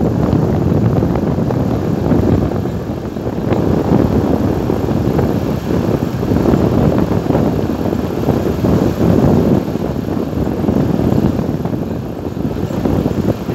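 Wind buffeting the microphone as the vehicle drives along a concrete road, a loud, uneven rumble mixed with the vehicle's road and running noise.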